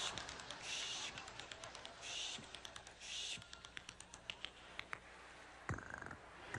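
Telephone clicks and taps on the line: a quiet run of small sharp clicks between short hissing bursts, then a louder click near the end followed by a brief tone.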